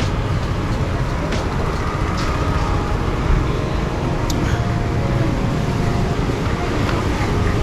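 Street ambience dominated by a steady rumble of road traffic, with faint voices and a few short clicks mixed in.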